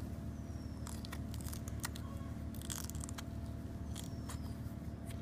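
Knife cutting and prying into the pared top of a tender green coconut: a series of short crunchy scrapes and clicks as the blade works through the soft shell and white flesh, over a steady low hum.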